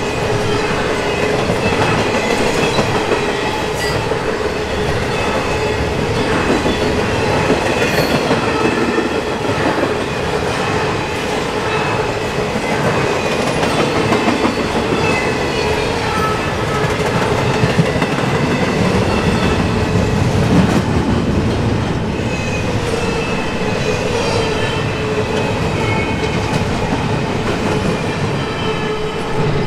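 Intermodal freight cars, trailers on flatcars and double-stack well cars, rolling past: a steady rumble of steel wheels on rail, clicking over the joints, with high ringing tones coming and going.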